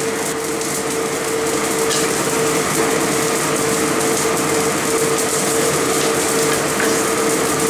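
Steady stovetop noise: a clay pot of chicken stew boiling hard on a high gas flame, under a constant whirring hum.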